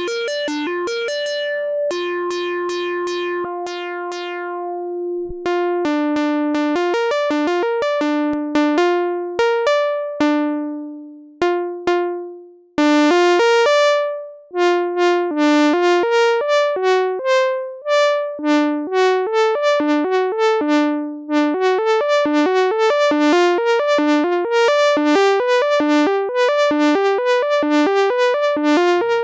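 Moog Werkstatt-01 analog synthesizer played one note at a time from its key buttons, in a bright melody. It opens with a few held notes, then moves to short plucked notes that each fade quickly, growing into a quick, even run near the end.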